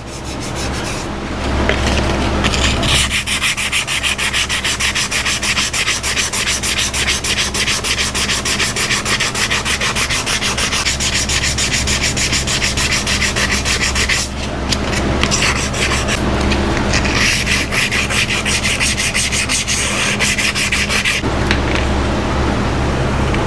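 Metal water jug being sanded by hand with an abrasive, in fast, even back-and-forth scraping strokes. The strokes break off briefly twice in the middle, over a steady low hum.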